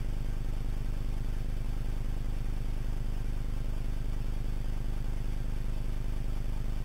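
CNC router running steadily while a 1/32-inch end mill bores into two-ply acrylic: a low machine hum with a fast, even flutter and a faint high whine.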